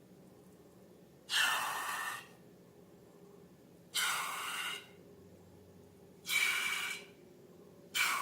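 Short rushes of air hissing, four of them, each under a second long and about two and a half seconds apart.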